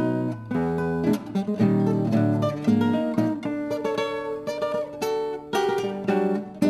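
Two nylon-string classical guitars playing a tango duet: plucked melody notes over bass lines, with sharp chord accents.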